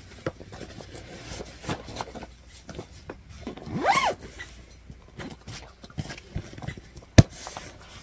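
Scattered rustling, scraping and clicking of things being handled, with one short whine that rises and falls in pitch about four seconds in and a single sharp knock near the end.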